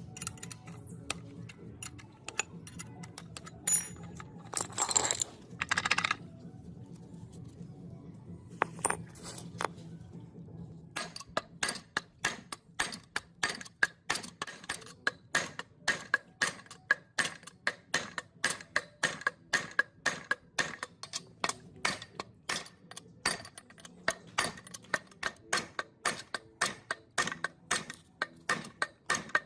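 Metal tools clinking against the parts of an old gearbox. About a third of the way in, a long run of quick, evenly spaced metallic clicks starts, about four a second.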